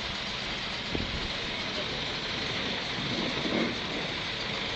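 Heavy diesel machinery running steadily as an old crawler piling rig is loaded onto a low-loader trailer, with a single knock about a second in.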